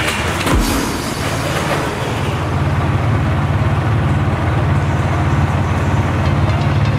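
Honda CRF450L's single-cylinder four-stroke engine running at a steady idle, with a thump about half a second in.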